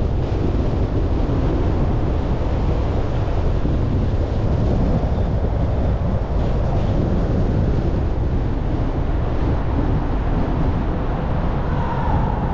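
Steady low rumble of wind and road noise from a car driving slowly along a city street.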